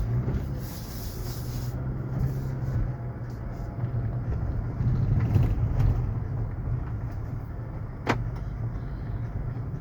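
Geely Atlas 2.4-litre driving over a rough, broken road, heard from inside the cabin: a steady low rumble of engine and tyres with one sharp knock about eight seconds in. No creak or crunch is heard from the cabin, with the creaking spot wrapped in black electrical tape.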